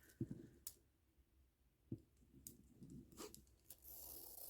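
Near silence with a few faint, scattered clicks of plastic kandi beads being handled, and a brief soft rustle near the end.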